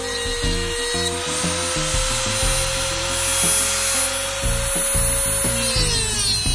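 Dremel rotary tool running with a steady high whine as its cutting disc cuts through a metal curtain rod; the whine drops in pitch and fades near the end. Background music with a bass line plays underneath.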